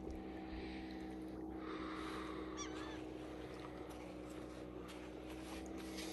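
A steady low motor hum, with a short warbling bird call about two and a half seconds in.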